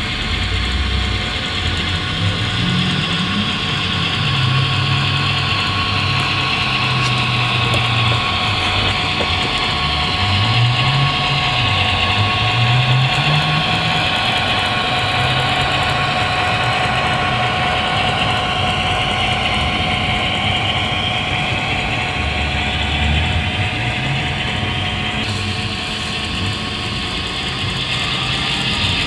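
Model Victorian Railways B class diesel locomotive running with its goods train: an engine sound whose low pitch steps and glides up and down, over a steady hum and the rolling hiss of wheels on track.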